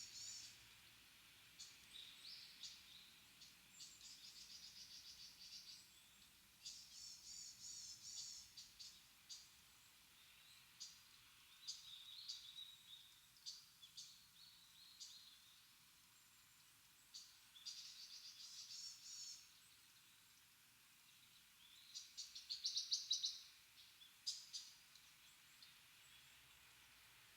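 Wild birds calling: bursts of high chirps and quick trills every few seconds, the loudest near the end.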